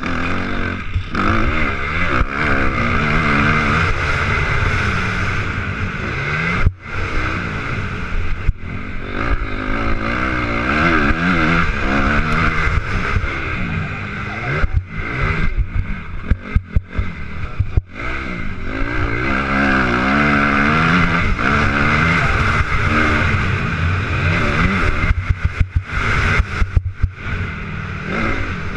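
Motocross bike engine revving up and down as the rider races the dirt track, heard from a helmet-mounted camera over steady wind noise. The sound cuts out sharply for a moment several times.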